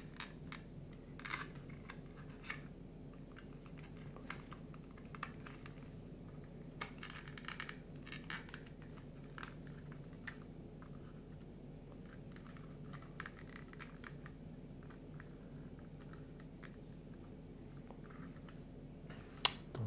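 Faint scattered taps, clicks and rustles of cardboard 3D-puzzle pieces being handled and pressed into their slots, over a steady low hum. A sharper click comes near the end.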